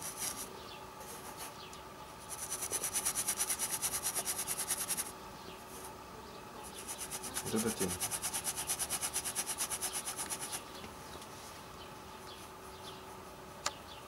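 Flat bristle brush scrubbing oil paint onto a stretched canvas in quick, even strokes, several a second, in two runs of about three and four seconds with a pause between.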